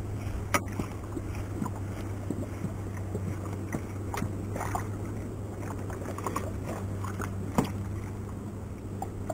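Baitcasting reel being cranked to wind in line, with scattered small clicks and ticks and a few sharper clicks, over a steady low hum.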